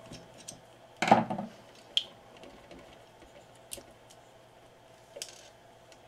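Small metal parts of a turntable drive motor being handled while it is taken apart by hand, its screws and nuts coming loose. There is a clunk about a second in, a sharp tick a second later, and a few fainter ticks after that.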